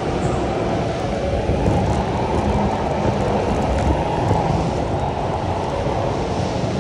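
Electric go-kart driven at speed, heard from the driver's seat: a steady, dense rumble of tyres, chassis and rushing air.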